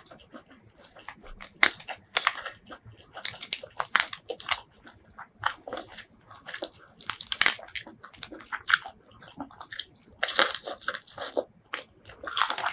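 Close-miked eating sounds of spicy shell-on prawns: irregular crunchy bites and chewing, mixed with the crackle of prawn shells being pulled apart by hand. They come in bunches every few seconds with quieter gaps between.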